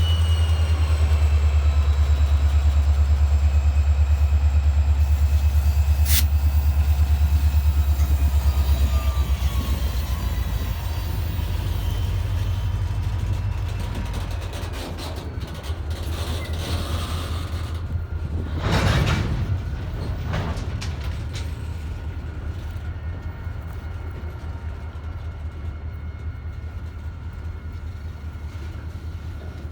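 A ballast train led by an EMD SD40-2 diesel locomotive rumbling past, loud for about the first nine seconds and then fading away. Faint high squealing tones slide slowly down in pitch early on, and a brief whoosh rises and falls about two-thirds of the way through.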